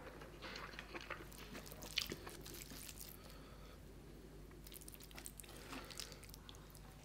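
Quiet eating sounds: mouth chewing a mouthful of rice and curry, with soft wet squishes of fingers mixing rice into curry on a steel plate. Small scattered clicks throughout, one sharper about two seconds in.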